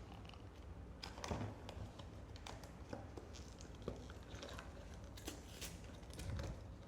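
Faint crinkling and scattered light clicks and taps of blind-box packaging being handled and opened by hand.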